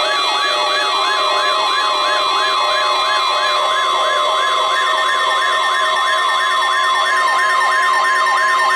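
NOAA Weather Radio warning alarm test: the steady 1050 Hz alert tone, layered with a siren-like falling sweep that repeats about three times a second and other steady tones from the overlapping broadcasts.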